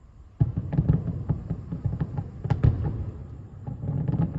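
Distant fireworks display: a rapid barrage of booms and cracks that starts suddenly about half a second in, with the sharpest bangs near the middle and another cluster near the end.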